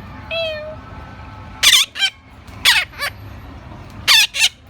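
Rose-ringed parrot imitating a human cough: a short whistled note, then harsh cough-like bursts, one on its own and then two pairs.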